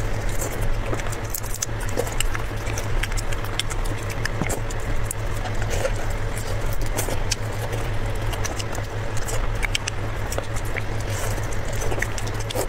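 Close-miked eating of raw marinated giant shrimp: wet sucking, smacking and chewing as the meat is pulled from the shells, with gloved hands peeling them. The result is a constant run of small wet clicks over a steady low hum.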